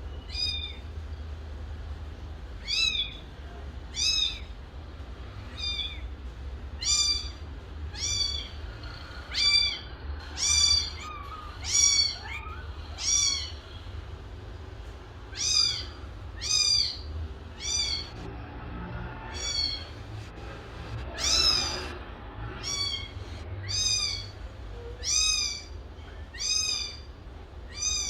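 Kitten meowing over and over: about twenty short, high-pitched meows, each rising and falling in pitch, spaced roughly every second or so.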